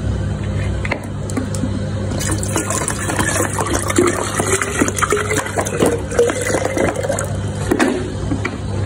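A drink being poured into a container for a few seconds, starting about two seconds in and stopping near the end, with a pitch that rises as it fills. A steady low hum runs underneath.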